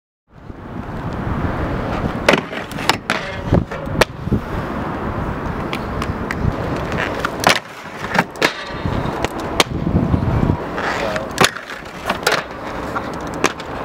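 Aggressive inline skates rolling on concrete, with a steady rumble of wheels broken by repeated sharp clacks and knocks as the skates land and strike rails and ledges.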